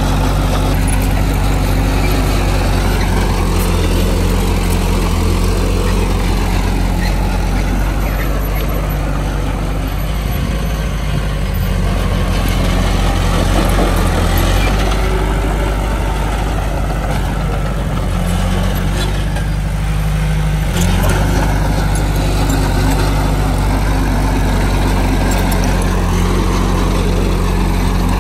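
Heavy diesel engine of earthmoving machinery running steadily under load, its note shifting briefly about two-thirds of the way through.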